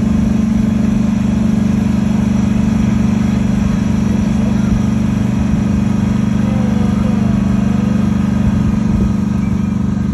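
Engine of a small trackless park train running steadily as it pulls its carriages, a constant low hum heard from on board.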